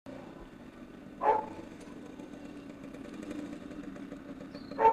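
Small motorcycle engine running steadily at idle, with a single dog bark about a second in.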